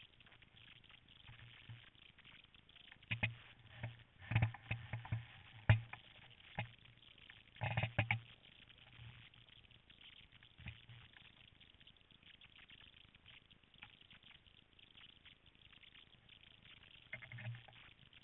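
Intermittent scraping and knocking of skis, poles and gear on snow, picked up by a camera mounted on a monoski frame, with a few sharp clicks between quieter stretches.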